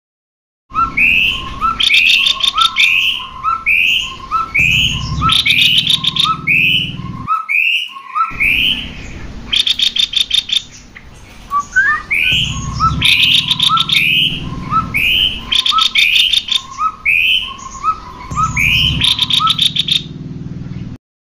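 Cucak kopi songbirds, male and female, singing: a fast, repeating run of short whistled notes, alternating low and higher, with rattling high trills mixed in. The song breaks off for about a second around seven seconds in, then resumes.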